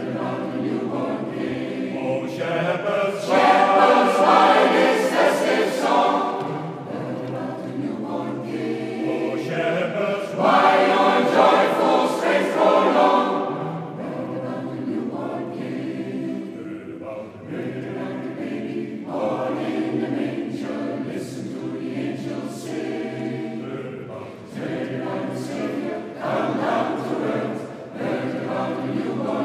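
Mixed choir of men's and women's voices singing in harmony, swelling louder twice: a few seconds in and again about ten seconds in.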